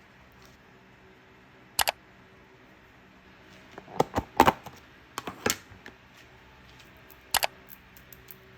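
Sharp clicks and taps over a low room background: a quick pair about two seconds in, a cluster of several clicks a couple of seconds later, and another quick pair near the end.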